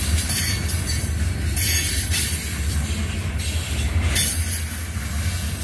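Covered hopper cars of a CSX freight train rolling past: a steady low rumble with a high hiss that swells and fades about every second.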